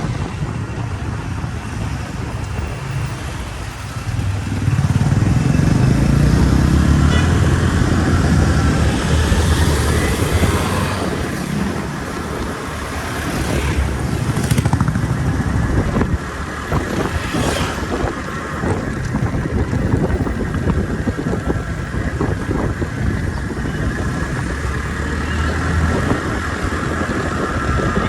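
Motor vehicle noise: a low engine rumble under a steady rushing hiss, swelling louder for several seconds about five seconds in.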